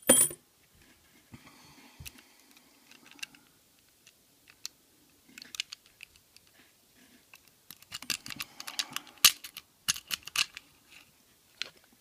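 A metal lock pick raking and scraping inside the brass pin-tumbler cylinder of a stainless-steel discus padlock, with light metallic clicks and ticks that grow into a dense run of rapid clicking in the second half. A single sharp metallic click comes right at the start.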